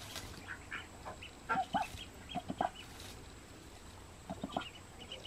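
A Golden 300 hybrid mother duck on her nest gives three short runs of quick, low quacks. Her newly hatched ducklings peep in short, high notes throughout. The hen is being protective of her brood.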